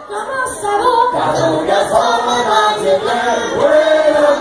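Voices singing a French folk song unaccompanied, in a group, holding long notes.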